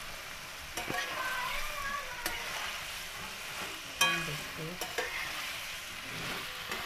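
Boiled potato cubes and coriander chutney sizzling in hot mustard oil in a kadhai as they are stirred together. The spoon clicks and scrapes against the pan a few times.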